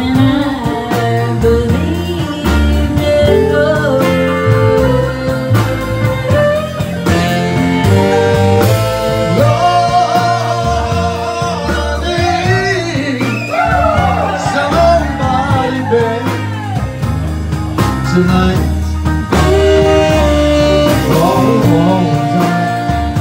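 Live band music with guitars, fiddle and saxophone over a steady bass line, and a singing voice.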